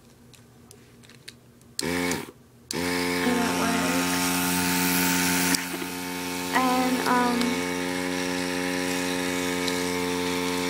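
Dinair airbrush makeup compressor switched on: a short start about two seconds in, then a steady electric motor hum that runs for about eight seconds, a little quieter from about halfway, and stops near the end.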